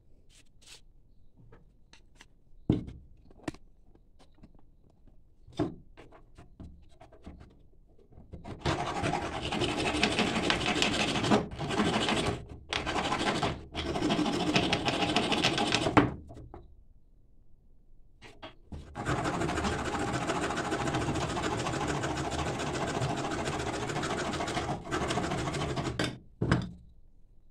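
A flat hand file rasping along a thin wooden strip held against a metal block, in two long spells of filing, the first broken by short pauses. A few sharp knocks and taps from handling the tools come before it.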